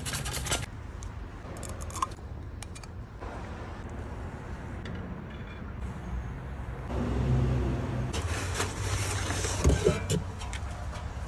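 Volkswagen bus engine running at a steady idle, with scattered clicks and rattles and a louder stretch of hiss a little past the middle.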